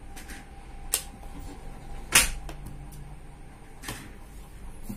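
A few sharp clicks, the loudest about two seconds in, from the feed button and power switch of a TVS Champ RP thermal receipt printer being pressed by hand.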